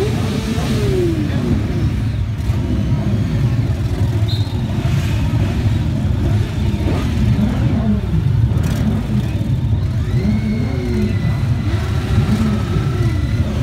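Many motorcycles riding off one after another, a dense din of engines with several revving up and down at once.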